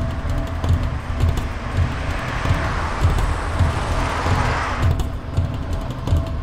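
A car passing along the street, its road noise building over a couple of seconds and cutting off abruptly a little before the end. Under it runs a low, steady pulsing beat of background music.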